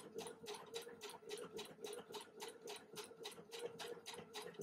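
Bernette b77 computerised sewing machine stitching alphabet letters at low speed. Its motor hums steadily under an even tick of stitches, about five a second.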